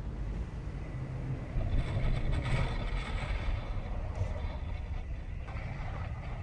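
Strong wind buffeting the microphone, with the rush of waves along a sailing yacht's hull in heavy seas. A louder hissing wash of breaking water and spray swells up about two seconds in.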